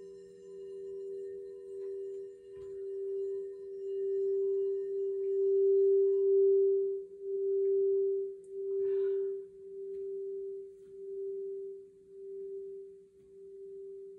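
Crystal singing bowl ringing one low, steady tone whose loudness wavers a little faster than once a second, swelling to its loudest midway and then fading away.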